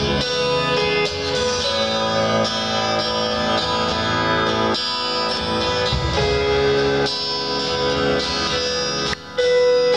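Live band playing rock music, led by strummed guitars, with a momentary break in the sound a little after nine seconds in.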